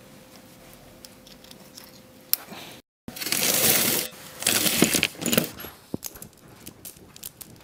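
Workshop tool sounds: scattered light clicks and knocks, then, after a sudden break, two loud bursts of rough scraping or hissing noise about a second each, with sharp knocks around them.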